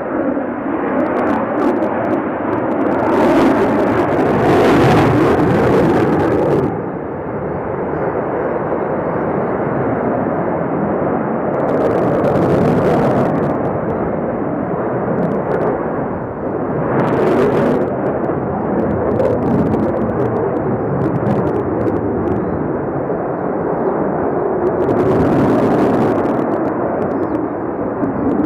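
Sukhoi Su-35 fighter jet's twin turbofan engines, a continuous heavy jet rumble as the aircraft flies overhead. It swells louder several times, about three seconds in, around twelve seconds and again near seventeen and twenty-five seconds, and eases between those swells.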